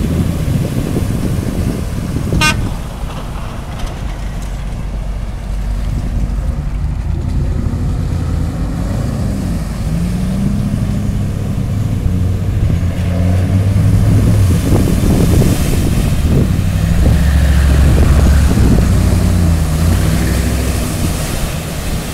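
Range Rover Sport and Jeep Grand Cherokee engines revving as the SUVs plough through a muddy water crossing, with water splashing and surging around the wheels. A short horn toot comes about two and a half seconds in, and the engines rise in pitch and grow loudest past the middle.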